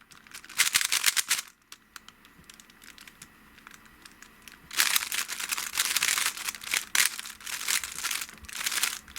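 Rubik's Cube being turned fast by hand: rapid runs of small plastic clicks from the layers snapping round. A short burst about half a second in, a few scattered clicks for a few seconds, then dense, continuous turning from about five seconds in.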